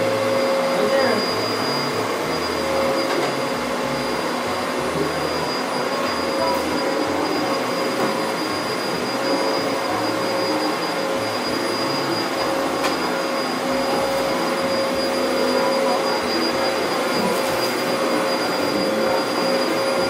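Upright vacuum cleaner running steadily as it is pushed over carpet, its motor noise carrying a constant whine.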